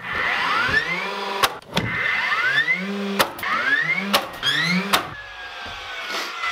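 DeWalt cordless framing nailer firing nails into lumber, about four shots. Each shot is a rising motor whine that ends in a sharp bang, and near the end the motor's whine dies away.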